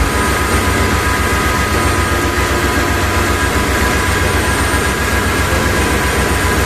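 Large engine running steadily, most likely the auxiliary generator's diesel engine: a rapid, even low pulsing with steady whining tones above it.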